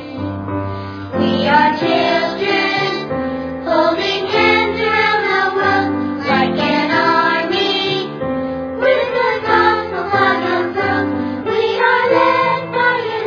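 Background music: a song with singing voices, sounding like a choir, over a sustained accompaniment.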